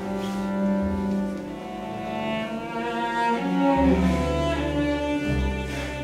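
Cello and orchestra playing slow, long-held notes. Deep bass notes come in about two-thirds of the way through.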